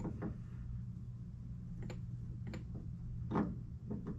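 Scattered light clicks and knocks of metal parts being handled as a new pitman arm is worked by hand onto the steering gear's splined shaft, the loudest knock a little over three seconds in. A steady low hum runs underneath.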